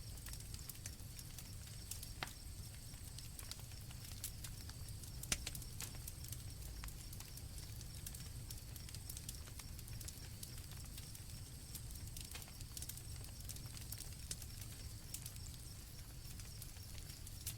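Campfire crackling with scattered sharp pops, the loudest about five seconds in, over a steady high chirring of crickets and a low rumble.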